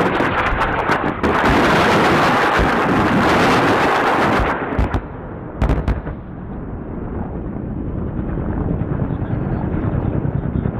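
Weapons fire: a rapid string of sharp gunshots and blasts for the first few seconds, then two more bangs. After that a steady rumble with a regular beat slowly builds.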